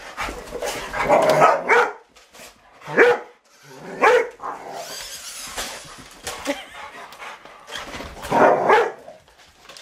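Rottweilers barking in a few separate bursts, about a second in, around three and four seconds in, and again near the end.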